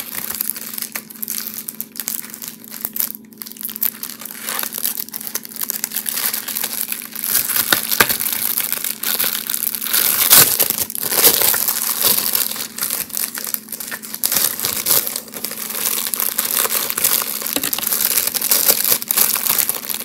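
Clear plastic packaging of a false-eyelash set crinkling and crackling as hands work at it to open it, loud and uneven, with stronger crackles around the middle.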